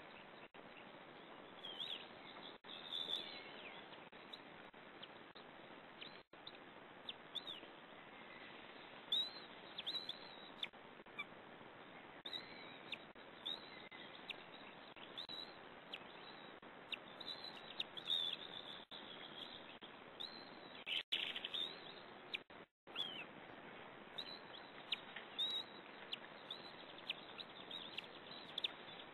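Short, high bird chirps: many brief downward-slurred notes that come irregularly and at times in quick clusters, over a steady background hiss.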